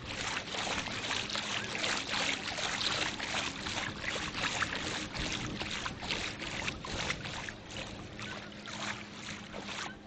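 Shallow sea water splashing and lapping at the shoreline close to the microphone, a continuous irregular crackling wash.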